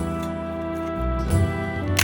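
Background music: held instrumental notes with a slow bass, changing chord about halfway through.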